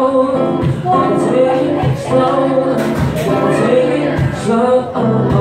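A man singing held, melodic lines into a microphone while strumming an acoustic guitar, with strums about once a second.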